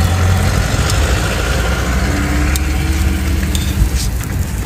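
Meat-filled flatbreads sizzling on an oiled griddle, over a steady low hum, with a few light clicks.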